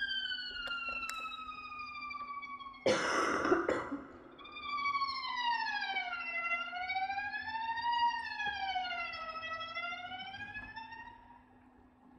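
Viola playing long sliding glissandi high on the strings. A held tone falls slowly, a harsh noisy rasp cuts in for about a second about three seconds in, then a new tone slides down and slowly rises and falls like a siren before fading away near the end.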